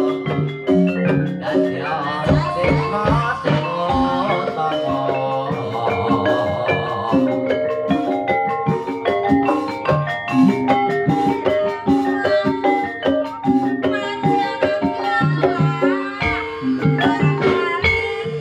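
Live jaranan dance music: tuned mallet percussion plays repeated stepped melodic patterns over steady drum strokes, with a sliding melodic line now and then.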